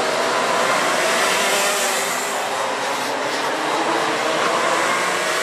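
Racing kart engines running loud and steady, the pitch wavering slightly.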